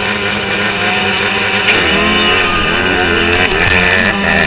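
A pack of motocross dirt bikes, among them the rider's own Honda CR85 two-stroke, revving hard as they launch off the starting gate, several engine notes climbing and falling through the gears at once.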